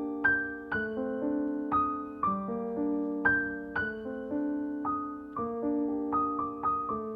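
Background piano music: a slow, gentle melody over sustained chords, with notes struck about every half second.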